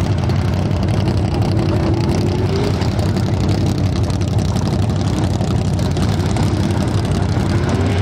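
Truck engine running loud and steady, with its pitch rising briefly about two seconds in as it is revved.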